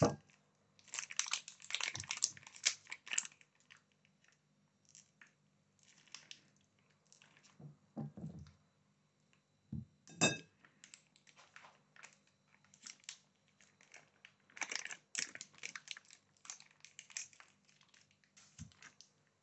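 Faint, intermittent crinkling of a paper wrapper as it is peeled back from a block of white cheese, with a few knife scrapes and clicks on a ceramic plate as the cheese is sliced.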